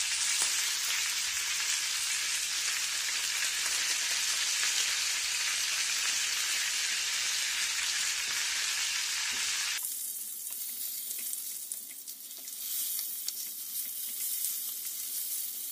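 Duck pieces sizzling in a dry frying pan heated to maximum with no oil, frying in the fat that the duck skin is rendering out. About ten seconds in the sizzle suddenly drops quieter, and near the end a spatula scrapes and knocks lightly as the pieces are turned.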